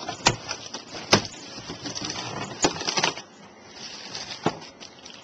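Packaging being handled and opened: rustling with several sharp knocks and snaps.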